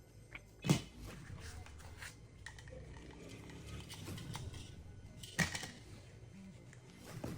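Handling noise of a pistol and its packaging: sharp hard clacks, the loudest about a second in and another a little past five seconds, with lighter clicks and taps between.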